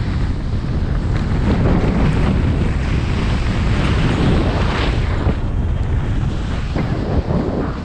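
Wind buffeting an action camera's microphone while skiing downhill, a steady heavy rumble, with a higher rushing hiss of skis over snow that swells and fades several times.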